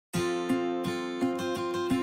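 Background music of a strummed acoustic guitar: chords in a steady, even rhythm.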